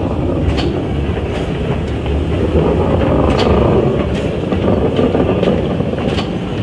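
Narrow-gauge 0-4-2T steam tank locomotive GELERT running slowly past with its carriages, a steady low running noise with scattered sharp clicks from the wheels and stock.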